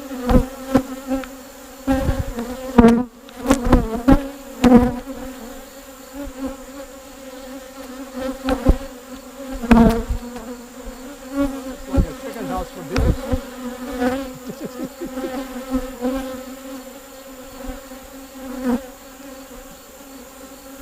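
Honeybees buzzing steadily around an opened hive, a constant low hum with a clear pitch. Irregular low thumps and knocks come through over the hum, loudest in the first half.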